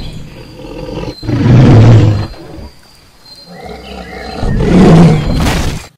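Dinosaur roar sound effect, two long low roars about three seconds apart, the second cut off sharply near the end.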